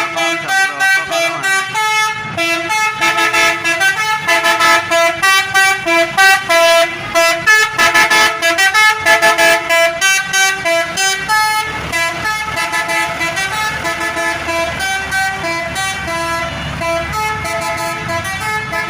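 Bus basuri horn, a multi-note 'telolet' horn, playing a fast melody, note after note. In the second half the notes are held longer over a low engine rumble.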